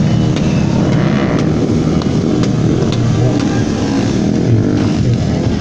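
Motorcycle engine running loudly, its pitch rising and falling as it is revved.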